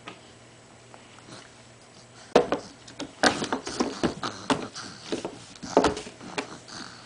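A baby making a quick run of short, breathy vocal noises, starting about two seconds in and dying away near the end.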